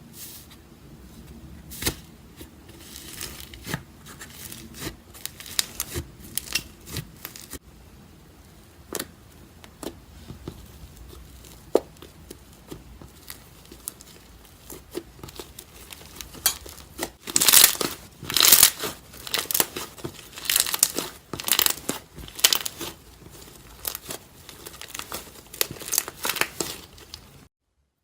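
Iceberg slime being pressed and pulled by hand, its hardened top crust crackling and crinkling. The crackling grows denser and louder in the second half.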